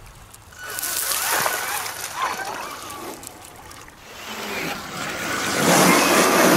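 Traxxas Summit RC truck wading into a fast-flowing river: water splashing and sloshing around the truck, heard close from the onboard camera and growing much louder over the last couple of seconds as the truck pushes through the current.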